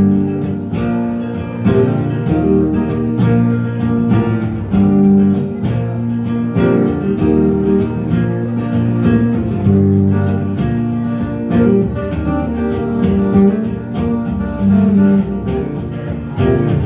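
Acoustic guitar strummed in a steady rhythm: an instrumental passage with no singing.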